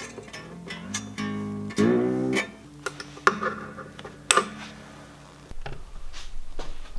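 Acoustic guitar freshly strung with D'Addario Phosphor Bronze XT strings, its strings plucked singly while being tuned: the pitch of a ringing string slides upward twice as its tuning peg is turned, with a few sharp clicks after. Near the end, rumbling and bumping handling noise takes over.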